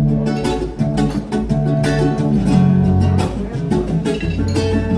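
Guitar music playing: plucked and strummed acoustic guitar with a steady run of notes.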